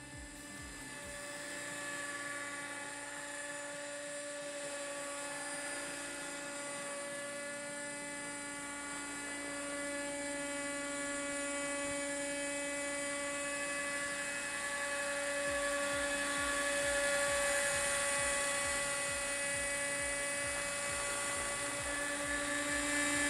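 Nitro RC helicopter's glow engine and rotor whining steadily in flight. The sound grows gradually louder as the helicopter comes close.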